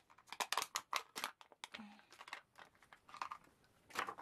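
Clear plastic packaging of a printer print head crinkling and crackling as it is handled and opened, an irregular run of sharp crackles that is densest in the first second and a half, then thins out to a few more.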